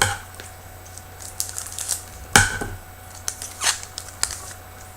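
Hockey trading cards and pack wrapping being handled: a series of short, crisp slides and flicks as the cards are fanned through, the loudest about two and a half seconds in.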